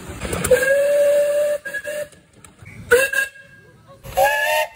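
Miniature steam locomotive whistles: a long steady blast starting about half a second in, short toots, then a higher-pitched whistle near the end.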